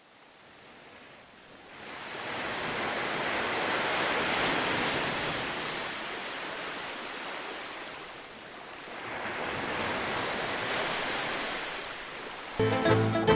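Surf washing up over sand, swelling and falling back twice. Plucked-string music cuts in near the end.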